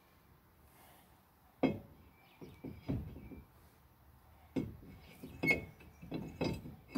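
Steel brake rotor knocking and clinking against the wheel hub as it is fitted over the studs onto a new wheel bearing: one sharp knock about a second and a half in, a few lighter ones, then a run of metal knocks and clinks near the end as it seats.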